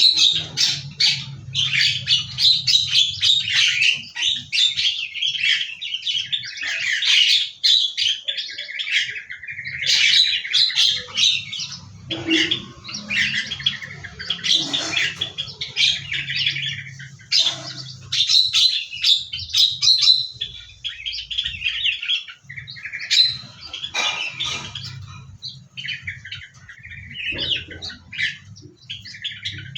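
Small aviary birds chirping and calling, many short overlapping chirps and tweets with a few squawks, over a faint low hum.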